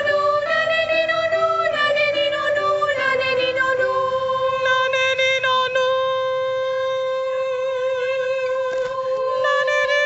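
A group of voices singing a vocal warm-up exercise over short stepped keyboard notes, then holding one long high note with a slight waver for several seconds; near the end a voice slides up to meet it.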